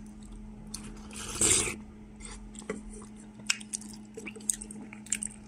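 A person eating soup from a spoon: one short, loud slurp about a second and a half in, then chewing with small wet clicks of the mouth.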